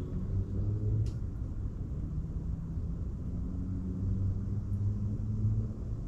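A low, steady engine rumble with a faint sharp click about a second in.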